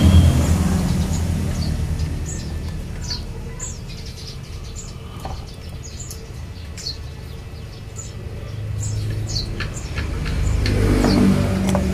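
A motor vehicle's engine passes close by, its drone fading over the first few seconds, then another engine grows louder again near the end. Small birds chirp throughout.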